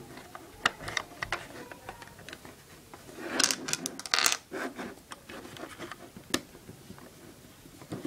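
Lego bricks and plastic parts clicking, scraping and rattling as the pieces of a Lego puzzle box are pushed and slid back into place, with a denser clatter about three to four and a half seconds in and a single sharp click a little after six seconds.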